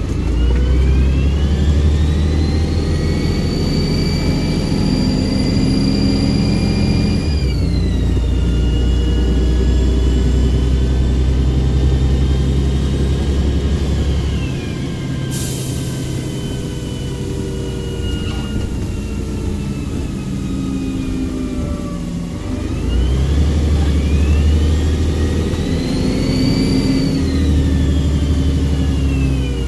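Volvo Olympian double-decker bus engine pulling under load with a high turbo whistle that climbs as the engine revs, holds, then drops away at each gear change or lift-off; this happens twice. About halfway through there is a short burst of air hiss.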